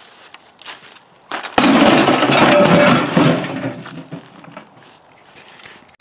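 Homemade air cannon firing at a gutted microwave: a few faint clicks, then a sudden loud blast about one and a half seconds in that rushes on for about a second and a half before fading away.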